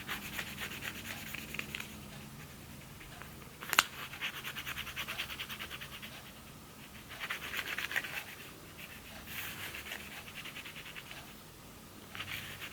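Edge of a plastic card scraping over a new screen protector on a phone's glass screen, pushing out trapped air bubbles. It comes in several spells of quick, rapidly repeated rasping strokes, with one sharp click a little before the first spell.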